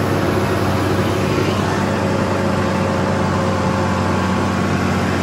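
Farm tractor's diesel engine running steadily under load while pulling a land-leveling scraper, a constant engine hum with a rushing noise over it.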